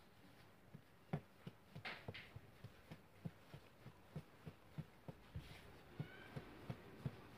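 Hands kneading a ball of yeast dough on a floured tabletop: soft, dull thumps about three times a second as the dough is pressed and folded against the table, with a brief rustle about two seconds in.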